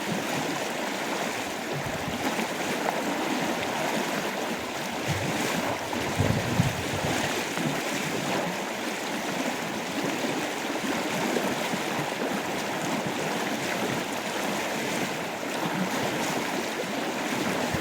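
River water flowing and rushing, a steady even noise, with a brief low thump about six and a half seconds in.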